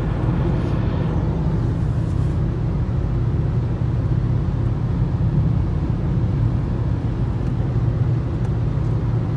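Steady low road and engine rumble heard from inside a car cabin while cruising on a motorway.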